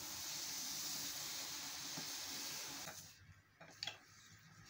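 Hot tutiya stone hissing steadily as the orange-blossom water sprinkled on it turns to steam, the sign that it is cracking from the inside so the cooked part falls away. The hiss stops suddenly about three seconds in, followed by a few light clicks of a metal spoon on a plate.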